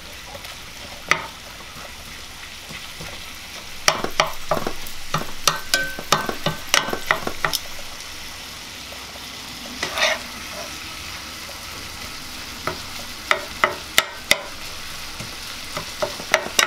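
Ground meat sizzling in an electric skillet while a metal fork stirs and breaks it up, with a steady hiss of frying under irregular sharp clicks and scrapes of the fork against the pan.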